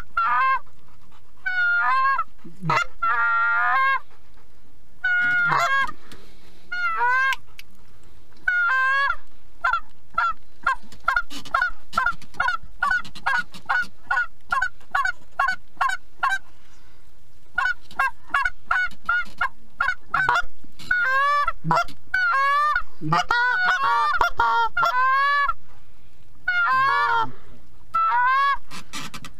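Canada goose honks and clucks, repeated in quick runs of about four a second with short pauses, several calls overlapping in the second half.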